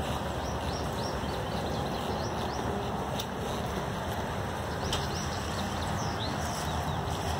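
Steady rain with small birds chirping repeatedly in short high calls.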